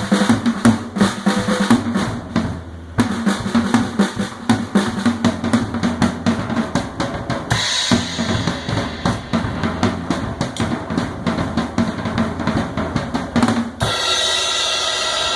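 PDP Platinum drum kit with a Pork Pie snare played in a fast, dense run of snare and bass drum strokes. The playing thins out briefly about two seconds in and breaks for a moment near eight seconds. About a second and a half before the end the strokes stop and a steady ringing wash carries on.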